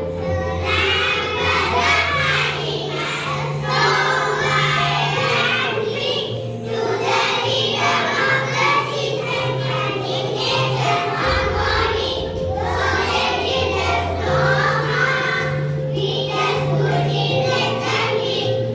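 A song with a group of children singing together over music, with a bass line that changes note every second or two.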